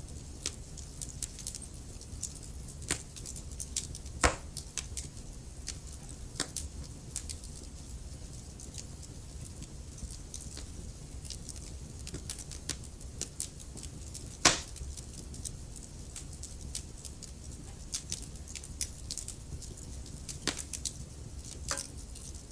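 Wood fire burning in a fireplace: a steady low rumble with irregular crackles and snaps from the logs, and two louder pops, about four seconds in and near the middle.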